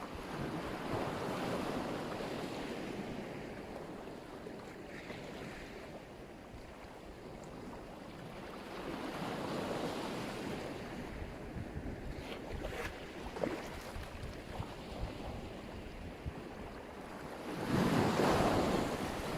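Black Sea waves breaking on the shore, surging three times about eight seconds apart, the last surge the loudest.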